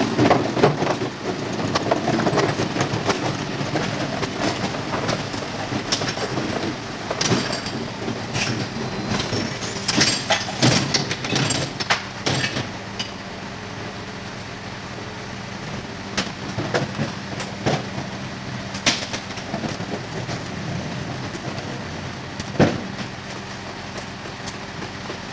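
Faun Variopress rear-loading garbage truck at work: its engine and hydraulics run steadily while metal clanks and rattles come in irregular runs, busiest in the middle, as bins are handled and tipped at the rear loader.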